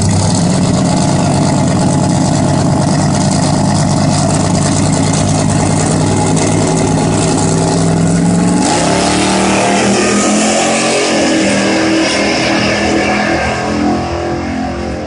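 Two drag-racing muscle cars' engines, with a black Chevy Nova in the near lane, run loudly at the starting line in a steady deep drone. About nine seconds in they launch, the engines revving up in repeated rising pitch as they pull away down the strip, and the sound fades slightly near the end.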